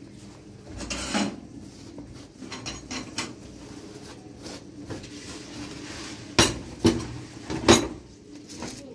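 Cleaning a gas stove top: a cloth scrubbing over the enamel and burners, then three sharp metal clanks about six to eight seconds in as the stove's burner parts and grates are handled.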